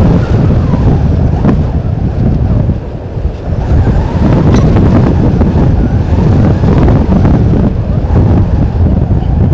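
Wind buffeting an outdoor camera microphone: a loud, low rumbling rush that rises and falls in gusts.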